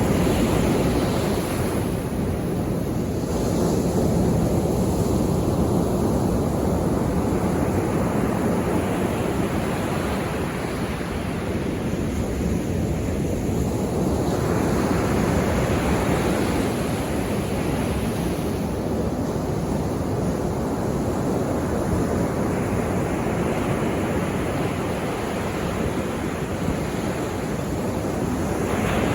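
Sea waves on the shore: a steady surf rushing, swelling and fading as each wave comes in and washes back every several seconds.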